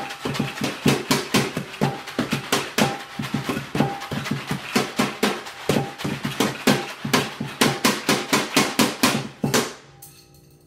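Improvised kitchen percussion by several players at once: kitchen utensils and spatulas striking metal mixing bowls and plastic jars in a fast, busy stream of hits, with some bowls ringing briefly. The playing stops about a second before the end.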